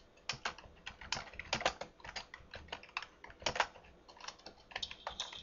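Typing on a computer keyboard: an irregular run of key clicks, several a second.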